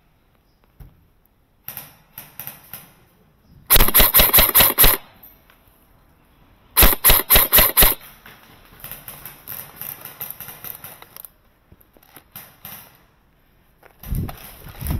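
Airsoft rifle firing two quick strings of about seven or eight shots each, a couple of seconds apart, with fainter clicking and rustling around them.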